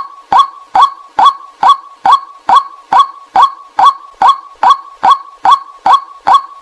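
White-breasted waterhen's 'kwak' call, short sharp notes repeated at a very even pace of a little over two a second. This is a looped decoy-call recording played to lure waterhens.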